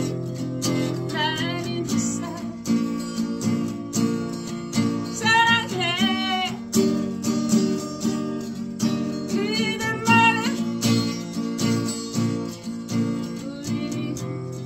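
A woman singing a ballad to her own strummed acoustic guitar. The strumming runs steadily, and her voice comes in three phrases, about a second in, around five seconds and around ten seconds, ending on held notes that waver with vibrato.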